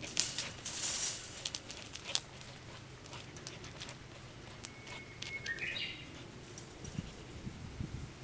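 Rustling and scratching close by, loudest in the first two seconds, then a short bird call about five seconds in: one held whistled note followed by a quick run of notes. A faint steady low hum lies underneath.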